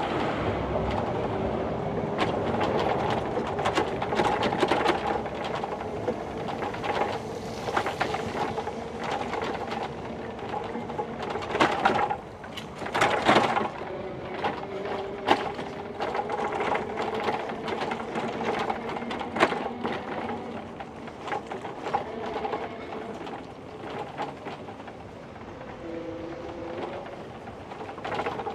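Bicycle rolling over a brick sidewalk: a steady rattle and hum from the tyres and bike parts, with many short knocks from the uneven bricks and a louder run of knocks about halfway through.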